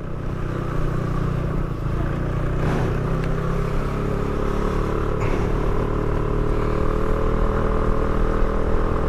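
Motorcycle engine running steadily while riding, getting a little louder in the first second or so and then holding an even level.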